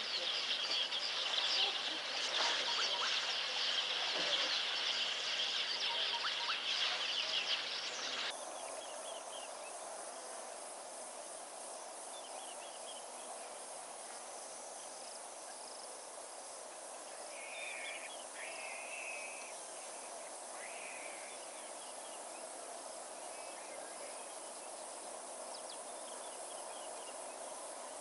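Outdoor wildlife ambience: a dense chorus of many birds calling for the first eight seconds or so, then a sudden cut to a quieter steady insect hum with a few scattered bird calls.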